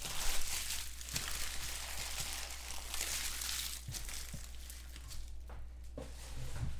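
Foil trading-card pack wrappers crinkling and being crumpled by hand, loudest over the first few seconds and dying away after about five seconds.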